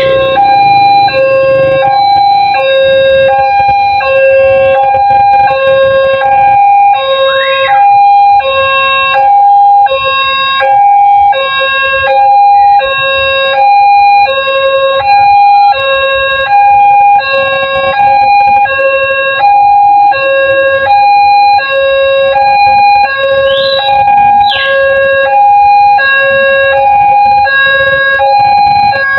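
Railway level-crossing warning alarm sounding while the barriers are down for an approaching train: two electronic tones, high and low, alternating steadily about every two-thirds of a second.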